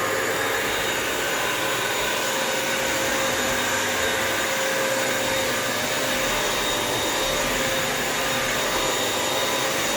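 Bissell vacuum-mop's motor running steadily, a constant hum with a high whine on top, just after being switched on.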